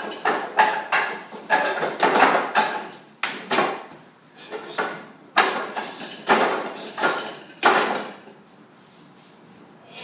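Hands and forearms striking the wooden arms and trunk of a Wing Chun wooden dummy: an uneven, quick series of hard wooden knocks, several a second, that stops about eight seconds in.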